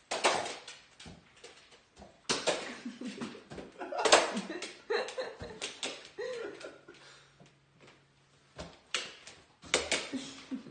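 People laughing and making wordless exclamations, broken by several sudden knocks that fit a dog jumping and landing on a wooden floor.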